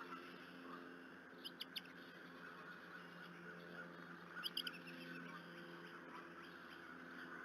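Faint bird chirps: two quick groups of three short, high squeaks about three seconds apart, over a steady low hum.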